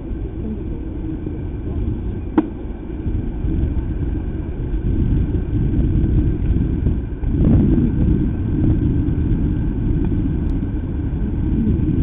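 Open-air ambience at a baseball field: a steady low rumble, with a single sharp crack about two and a half seconds in.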